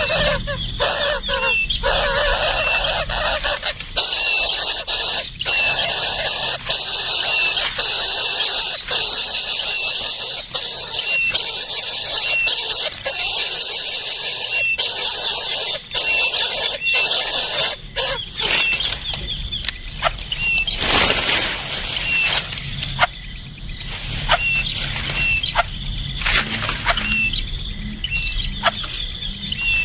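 Crickets chirping in a steady high pulsing trill, with a bird giving short repeated chirps about once a second and scattered clicks.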